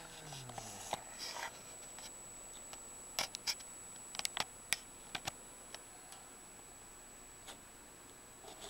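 Handling noise: scattered sharp clicks and short rustles as a paperback book is held, moved and turned over close to the microphone, over a faint steady high whine.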